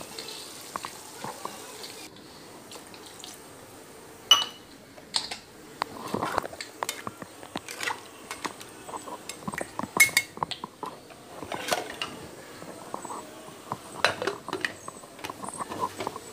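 A ladle stirring mutton soup in an aluminium pressure cooker, with liquid sloshing and scattered sharp clinks and knocks of metal on the pot. The cooker's lid is fitted on near the end.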